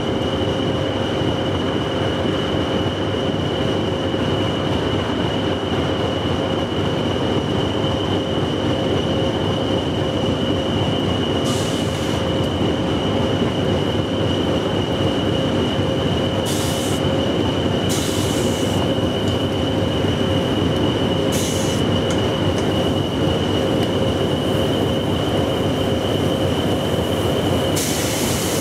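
Railway locomotive running while standing: a steady rumble with a constant high-pitched whine, broken by a few short hisses.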